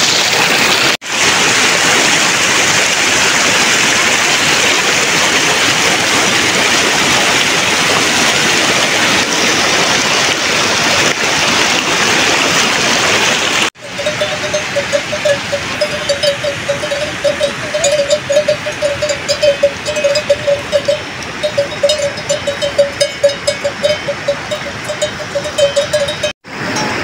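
A steady rushing noise fills the first half. After a cut about halfway through, a cowbell on the grazing livestock clanks over and over in an uneven rhythm on one ringing note.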